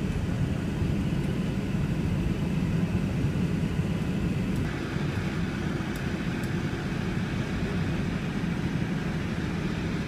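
Steady low rumble of a moving car's engine and tyres, heard from inside the cabin.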